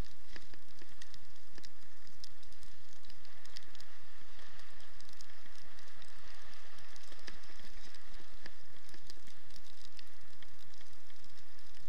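Dog sled running on a snow trail: a steady hiss of the runners over the snow, with a fast patter of the dogs' paws and many small clicks and knocks.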